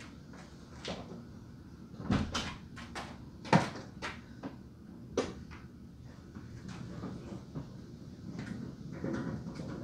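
A handful of sharp knocks and clunks carried through the body of a 1956 VW Beetle, the loudest about three and a half seconds in, as someone inside the car works the fuel tap's reserve lever loose.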